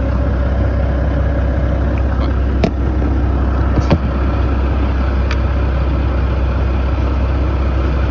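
Semi truck's diesel engine idling with a steady low drone. A few light clicks and knocks sound over it, about a third and halfway through.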